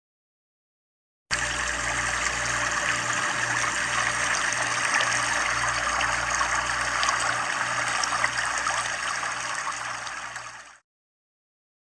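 Steady rushing noise like running water, with a low hum underneath that pulses a little under twice a second. It starts abruptly about a second in and cuts off near the end.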